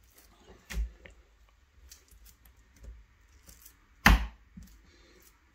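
Kitchen knife working on a raw chicken breast on a wooden cutting board: two sharp knocks on the board, the louder about four seconds in, with faint cutting and handling sounds between.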